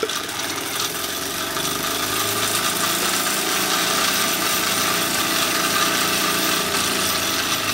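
Wilesco D406 model steam traction engine running fast and steady on live steam with no load, its drive belt slipped off the flywheel so the Baker fan no longer drags on it.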